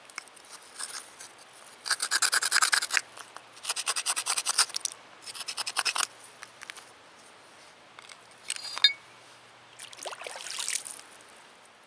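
Stone scraping on stone: a piece of creek slate rubbed hard against another rock in several bursts of quick rasping strokes, each about a second long. A brief high squeak comes about two-thirds of the way in.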